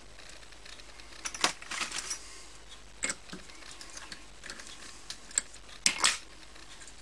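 Scattered light metallic clicks and clinks of a freshly wound steel wire spring and lathe parts being handled by hand, with the lathe motor off. The loudest clusters come about one and a half seconds, three seconds and six seconds in.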